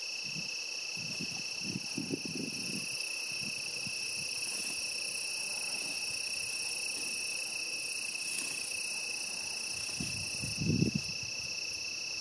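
A steady chorus of crickets trilling, with the swish and crunch of footsteps through tall dry weeds near the start and again about ten seconds in.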